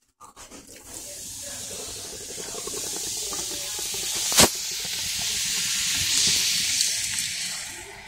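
Shaken soda can fizzing and foaming out into a stainless steel sink, a steady hiss that builds and then fades near the end. A single sharp knock about four and a half seconds in, the loudest moment.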